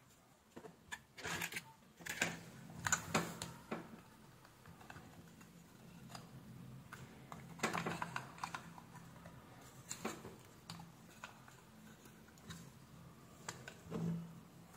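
Irregular light clicks, taps and rattles of small plastic parts as an aquarium air pump's diaphragm assembly is handled and pressed into its plastic case.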